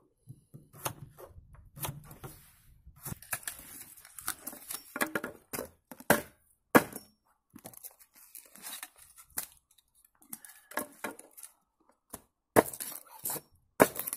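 Irregular snaps, cracks and tearing from scrap wood sticks and cardboard being broken up by hand.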